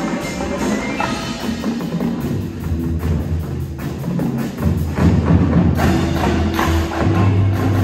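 Indoor drumline playing: marching snare, tenor and bass drums with a front ensemble of marimbas and other mallet keyboards, in a steady run of sharp strokes. A deep held bass enters about two seconds in and grows louder about halfway through.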